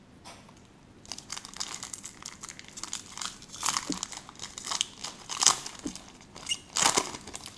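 Foil trading-card pack wrapper being crumpled and folded in the hands, crinkling in irregular bursts.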